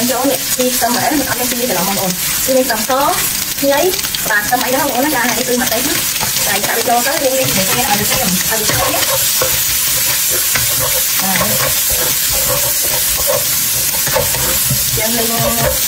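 Sliced pork and chopped vegetables sizzling in hot oil in a nonstick wok, stirred and tossed with a spatula.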